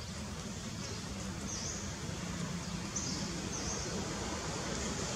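Outdoor ambience: a steady high hiss over a low hum, with a few short high chirps scattered through.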